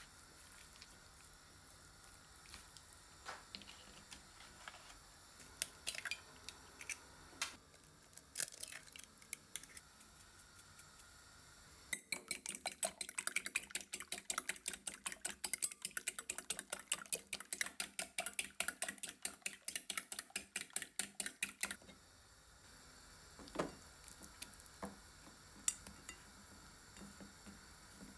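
Eggs being beaten in a bowl: a utensil clicks rapidly against the bowl, about five strokes a second for some ten seconds in the middle. Before and after it come scattered light clicks and knocks of kitchenware being handled.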